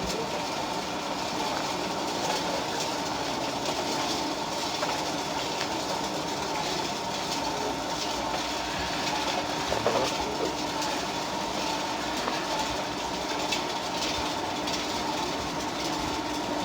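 Radio-controlled model construction machinery running: a steady mechanical whine with light rattling clatter.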